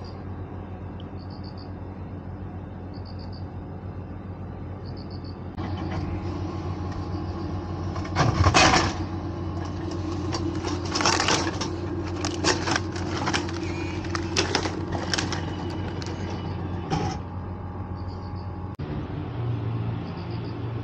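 Frozen ramen vending machine dispensing: short electronic beeps repeat about every second and a half over a steady low hum. Then the mechanism works, a loud thud comes about eight seconds in as the frozen boxed ramen drops into the delivery tray, and knocks and clatter follow as the flap door is lifted and the plastic box is handled.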